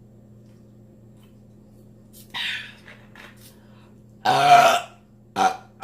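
A woman burps loudly once, about four seconds in, a short pitched belch, with a shorter throaty sound just after it near the end. A brief breathy sound and a couple of small mouth clicks come before it, over a low steady hum.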